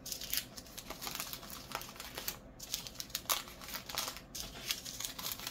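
Small plastic bags of diamond-painting drills being handled, crinkling with many light, irregular clicks.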